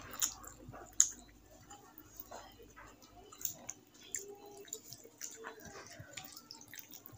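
Fingers mixing rice and curry on a plate, with small wet squelches and clicks, along with chewing. A few sharper clicks stand out, the loudest about a second in.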